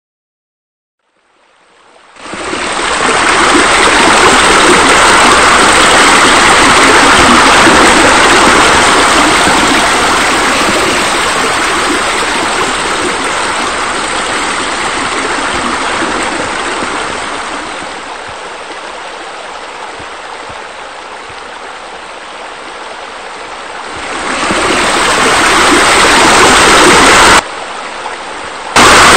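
Steady rushing of running water, like a stream or small waterfall, fading in about two seconds in. It eases off in the middle, swells again, and drops off abruptly for a moment near the end.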